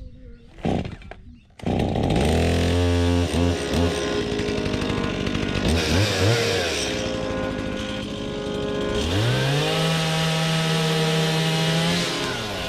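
Stihl MiniBoss two-stroke chainsaw starting up about a second and a half in, idling, then blipping the throttle. The engine pitch rises and falls with the revs and is held at a steady high rev for a few seconds near the end.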